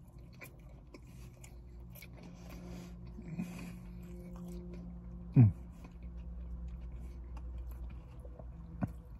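A man chewing a mouthful of McDonald's Chicken Big Mac close to the microphone, with faint wet clicks under a low steady hum. About five seconds in there is a short, loud vocal sound that falls in pitch.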